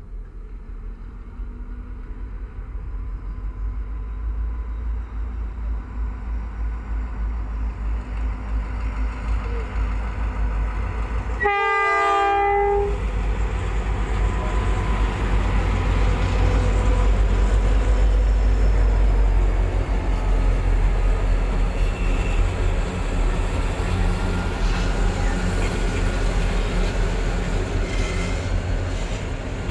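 Grain train approaching and passing: the rumble of its diesel locomotives grows steadily louder, and a little before halfway a locomotive horn sounds one chord for about a second and a half. The locomotives then pass at their loudest, and a long line of grain hopper wagons rolls by with steady wheel rumble and clicking.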